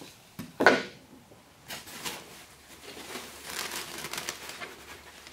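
A single sharp knock just under a second in, then plastic packaging wrap crinkling and rustling as it is handled.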